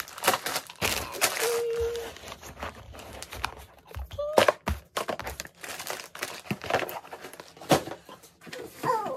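Plastic-wrapped baby samples crinkling and rustling as they are packed back into a cardboard box, with irregular knocks of items against the box.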